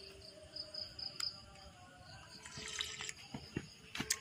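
Faint, high-pitched insect chirping in short pulses, with a few sharp clicks: one about a second in and two near the end.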